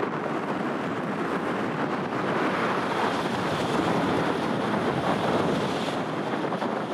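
Tokaido Shinkansen bullet train passing at speed along a viaduct: a rushing noise that swells about two seconds in and holds for several seconds.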